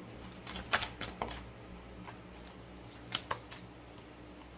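Oracle cards being handled on a table: a few light clicks and taps, a cluster about half a second in and another pair about three seconds in, over a faint steady hum.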